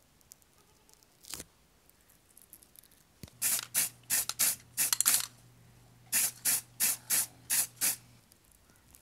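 Paint being sprayed onto a small model part in about a dozen short hissing bursts, in two runs, with a steady low hum under them.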